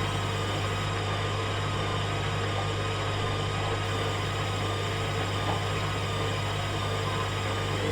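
Hoover Dynamic Next washing machine running its rinse-and-spin cycle, the drum motor giving a steady hum with a whine over it.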